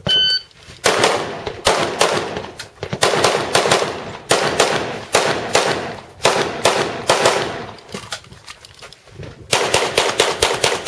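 A competition shot-timer beep at the start, then rapid strings of gunshots from an AR-15 rifle, fired in quick bursts with short gaps. After a lull about eight seconds in, a faster string of pistol shots follows near the end.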